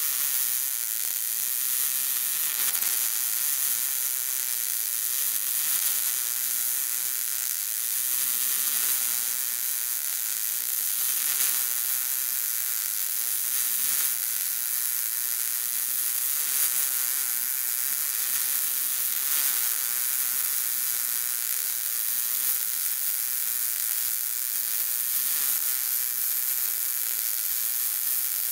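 Wire-feed welder's arc sizzling steadily without a break as it lays a bead on square steel tubing.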